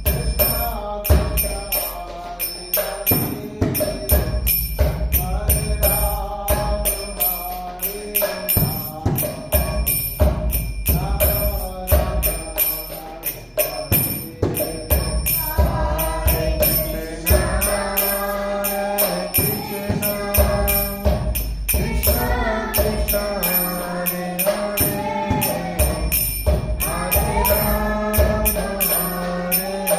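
Devotional chant music: voices singing a chant over a steady beat of jingling hand percussion.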